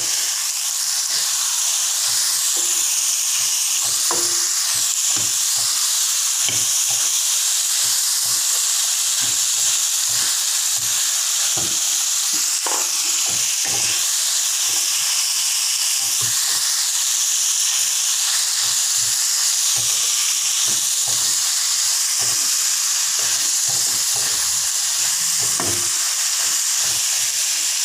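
Sliced winged beans frying in hot oil and chilli paste in a stainless steel wok: a loud, steady sizzle that swells as the beans go in at the start. A spatula scrapes and tosses them in frequent, irregular strokes against the metal.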